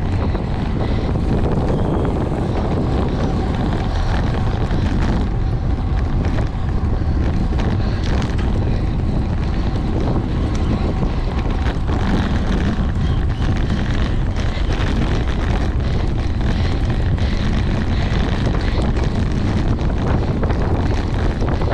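Steady wind noise rushing over the microphone of a camera on a bicycle moving at racing speed.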